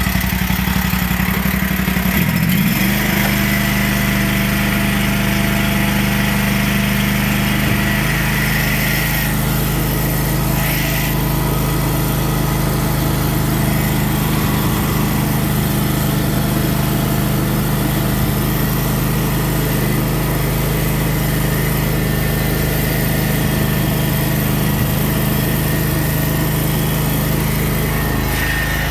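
Canycom SC75 tracked concrete buggy's engine running steadily, its pitch shifting up a little about two seconds in. A brief hiss comes in about ten seconds in.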